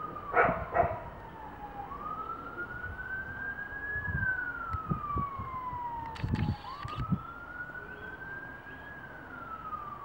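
A siren wailing: its pitch rises over about two seconds, then slides slowly back down, twice. A couple of short knocks sound near the start.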